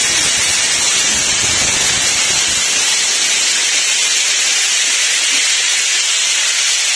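Loud steady hiss, with a low rumble under it that fades out about two and a half seconds in.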